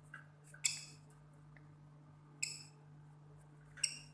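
Lovebird giving three short, high squeaks about one and a half to two seconds apart while held in the hand, its foot just pricked with a lancet for a blood sample. A faint steady low hum runs underneath.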